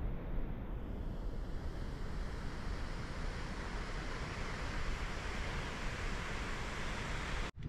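Wind buffeting the microphone: a steady rushing noise with a heavy, fluttering low rumble, cut off abruptly near the end.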